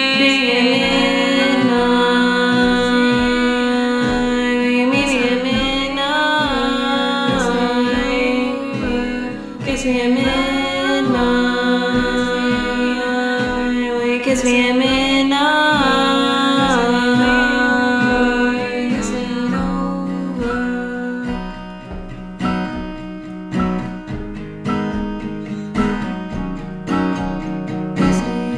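Music: long held, wordless sung notes over acoustic guitar. About twenty seconds in the voice stops, leaving the guitar strumming alone.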